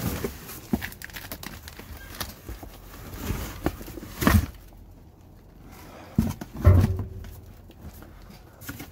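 Rummaging in a dumpster packed with cardboard boxes and plastic bags: cardboard scraping and crackling under the feet and hands, with a few dull thumps, the loudest about four seconds in and again near seven seconds.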